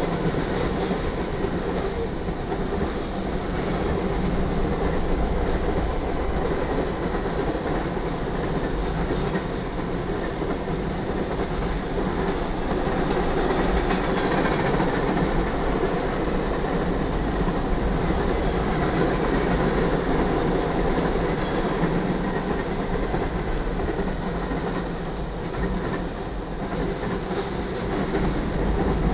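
Freight cars of a manifest train rolling past close by: the steady rumble and rattle of steel wheels on the rails.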